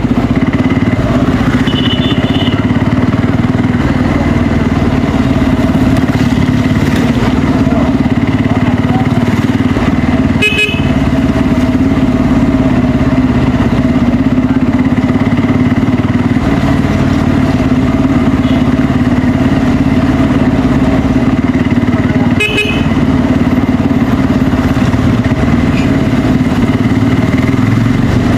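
Bajaj Pulsar N250's single-cylinder engine running through its stock exhaust, cruising at a steady pitch. Short horn honks cut in about ten seconds in and again near the end.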